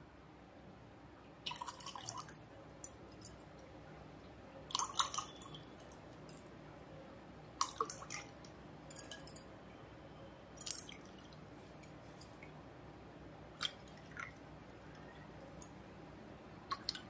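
Gond katira sharbat ladled from a bowl into a glass over ice cubes: short splashes and trickles of liquid every couple of seconds, with a few sharp clinks.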